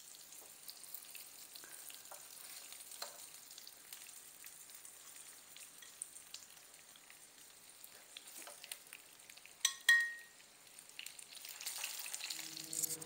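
Salmon pieces frying in shallow olive oil in a pan, a faint sizzle with scattered crackles. A sharp clink rings out about ten seconds in as a piece is moved into a glass dish.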